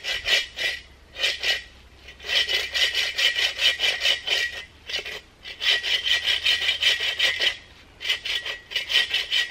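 Hand saw cutting through a dead branch with quick back-and-forth rasping strokes, about five a second, in several bursts with short pauses between them.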